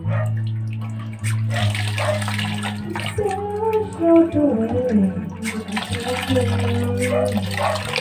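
Water running and splashing from a leaking brass wall faucet into a plastic basin, while a hand works the faucet's lever handle; the tap keeps leaking even when shut, which the owner traces to a thinned, hardened rubber washer. A steady low hum sits underneath, with a wavering tune from about three seconds in.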